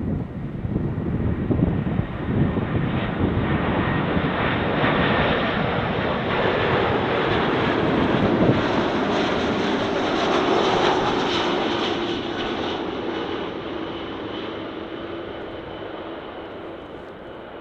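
Airliner on short final approach passing low overhead: its engines' roar swells to a peak about halfway through and then fades away, with a whine that drops in pitch as it passes.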